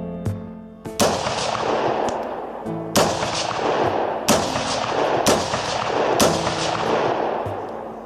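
Five rifle shots, the first about a second in, then a pause and four more about a second apart, each trailing off in a long echo.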